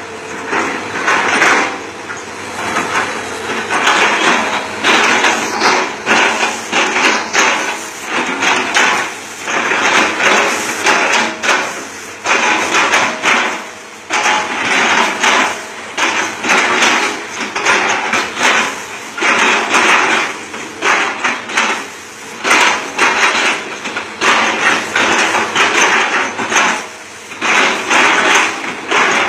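Hitachi ZX200-5G excavator chopping up oil palm with its bucket: irregular bursts of crunching and cracking as the fibrous trunk and fronds are smashed and split, about one burst a second.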